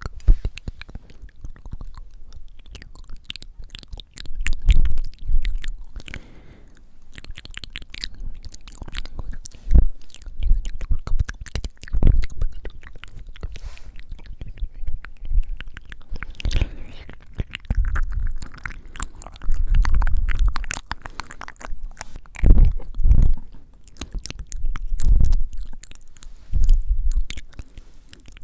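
Close-miked ASMR mouth sounds: moist lip and tongue clicks and smacks throughout, with repeated loud puffs of breath blowing on the microphone every couple of seconds.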